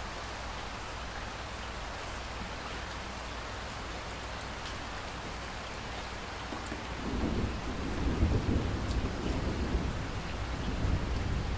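Steady rain falling, with scattered single drop taps; about seven seconds in, a deep roll of thunder builds and rumbles on to the end.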